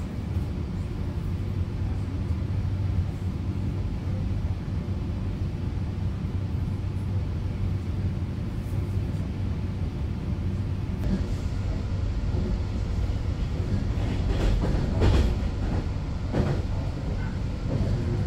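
Inside a moving commuter train carriage: the steady low rumble of the car running on the rails, with a few louder clatters about three-quarters of the way through.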